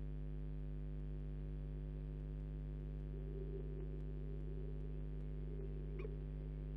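Steady electrical hum made of several low tones, with one brief higher sound about six seconds in.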